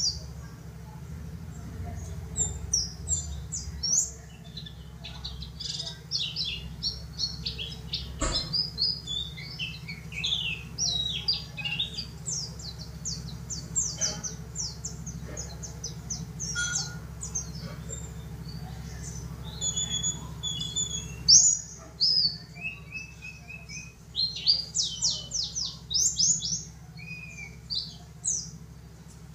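Yellow-breasted white-eye (pleci dakun) singing: rapid runs of high, thin chirping notes in bursts with short gaps, over a steady low hum.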